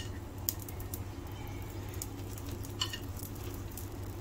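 Sparse light clicks and taps of chopsticks against a nonstick frying pan as olive slices are arranged on egg toast, with one sharper click near three seconds in, over a low steady hum.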